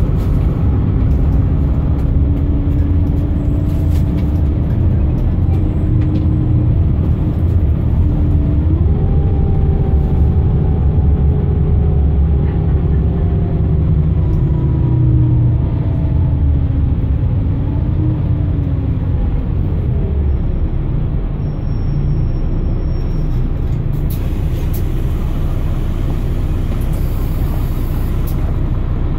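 Cabin sound of a Solaris Urbino 15 diesel bus under way: the 9.2-litre DAF engine and ZF Ecolife automatic gearbox give a heavy, steady low rumble. Over it runs a whine that jumps up in pitch about eight seconds in, then slowly falls over the next ten seconds.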